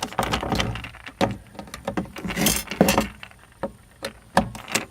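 Irregular clicks, clinks and light knocks of hard parts being handled while fitting a hard drive into a PC case's drive mount, with a short scraping rustle about halfway through.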